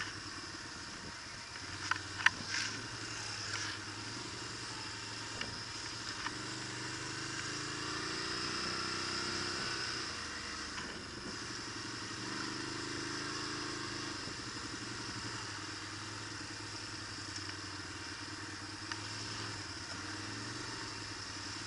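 Quad bike engine running as it rides over a rough dirt track, the engine note rising and falling twice with the throttle. A couple of sharp knocks about two seconds in.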